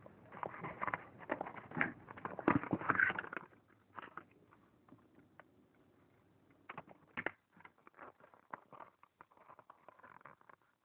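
Sheet of paper rustling and crinkling as it is rolled into a cone close to the microphone, with hands brushing and bumping near it. The handling is dense for about the first three and a half seconds, then thins to scattered clicks and taps.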